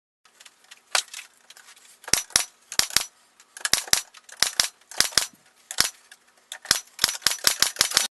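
Air-powered pneumatic nailer firing nails into pallet-wood boards: a quick run of sharp snapping shots, often in pairs, coming faster near the end.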